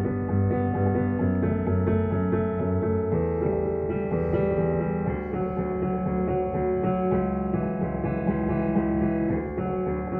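Piano played with both hands: a steady, continuous run of chords and melody notes over sustained bass notes.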